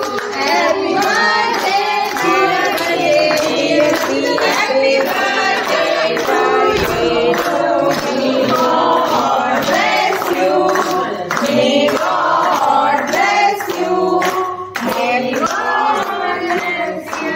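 A group of people singing a birthday song together, with hands clapping along.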